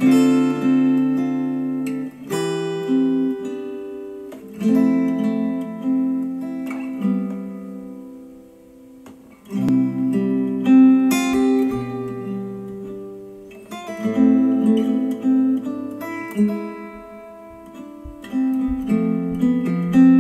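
Acoustic guitar instrumental, picked notes and strummed chords that ring and die away, played back over Elac DBR62 bookshelf speakers. It goes quiet about halfway through, then comes back louder.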